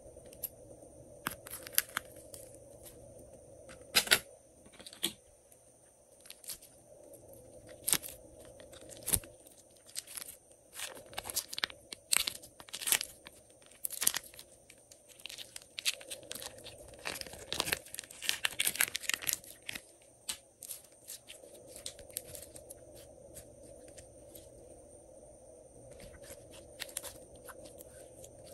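Plastic piping bag of glitter slime squeezed and handled: irregular crinkling and crackling of the plastic with sharp clicks, busiest in the middle and sparse near the end.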